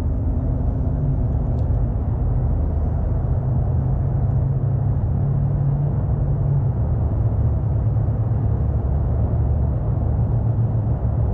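A steady, low engine-like drone with a constant hum, holding even throughout.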